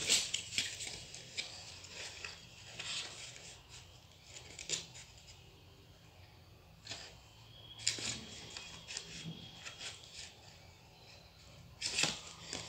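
Stiff card paper being handled and folded by hand: irregular crisp rustles and scrapes, loudest at the start, about eight seconds in and near the end.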